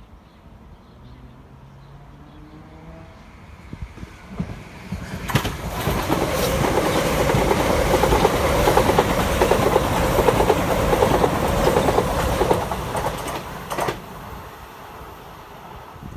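Southern electric multiple-unit passenger train passing close alongside the platform, rising to a loud rush with rapid clattering of wheels over the rails, then fading as it moves away.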